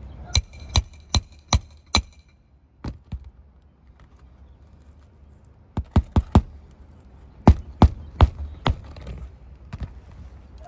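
Hammer blows on a roof snake, a flat steel bar driven under shingles to get at the nails. A quick run of about five ringing metal strikes comes first, then more sharp strikes in clusters.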